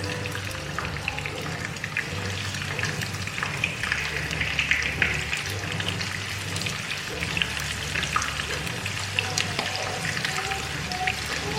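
Food frying in hot oil in a pan: a steady, dense sizzle and crackle with scattered small pops.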